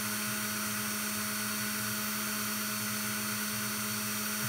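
Logan Model 200 lathe running steadily, a constant motor hum with no change in pitch.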